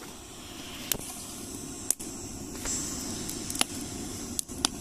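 Small electric fan running at full speed, its airflow rushing over a smouldering campfire to fan the embers back into flame, with a handful of sharp crackles from the burning wood.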